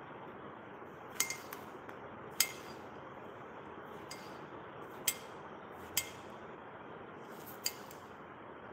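Kitchen utensils clinking against one another, five sharp clinks spaced irregularly over several seconds, over a steady background hiss.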